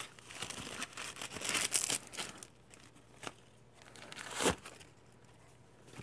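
Hands rustling and handling the packaging of a mail-order box of trading cards. The rustling is dense for the first couple of seconds, then there is a click and one sharper, louder bump about four and a half seconds in.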